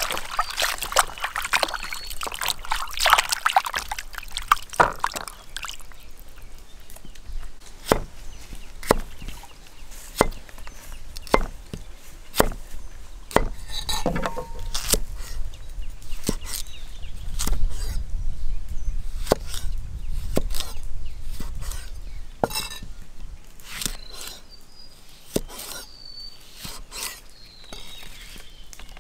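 Liquid pouring for about the first five seconds, then a long run of sharp single knocks about once a second, a knife chopping on a wooden board. Birds chirp briefly now and then.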